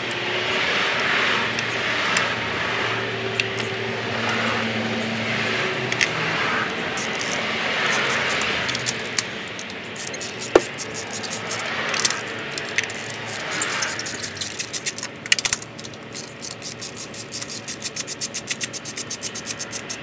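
Hand work in an engine bay: parts rubbing and scraping for the first half. Then, in the latter part, a socket ratchet clicking rapidly and evenly, several clicks a second, as it turns a spark plug through an extension.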